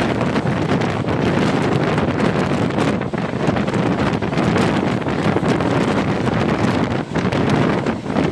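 Heavy wind buffeting the microphone out of a moving passenger train's coach, over the steady running noise of the train at speed.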